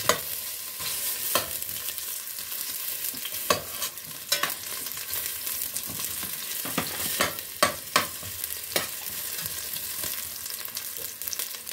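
Garlic and onion sizzling in hot oil in a stainless steel pot, with a metal spoon clinking and scraping against the pot about nine times as they are stirred.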